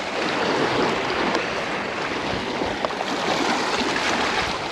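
Steady wash of waves against the jetty rocks, with wind noise on the microphone.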